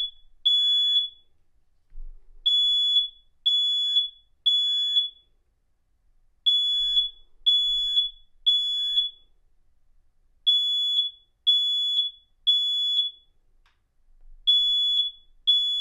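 Smoke alarm sounding in test mode: high, piercing beeps in groups of three, each group repeating about every four seconds, the standard temporal-three evacuation pattern.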